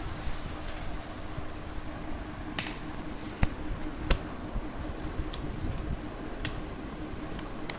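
Steady room noise with a faint low hum, broken by a handful of short, sharp clicks scattered irregularly.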